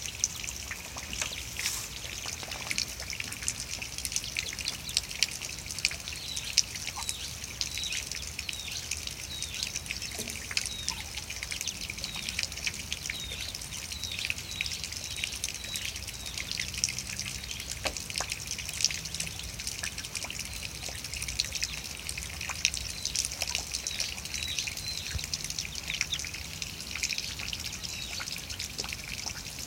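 A brood of Muscovy ducklings peeping: a steady stream of many overlapping high, short chirps.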